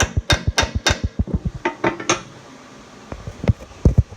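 Sharp metal-on-metal strikes and clicks from a hand tool working a nut welded onto a broken stud as the stud starts to turn. Strikes come about three a second for the first second, then faster, lighter clicks, then a few scattered clinks and knocks.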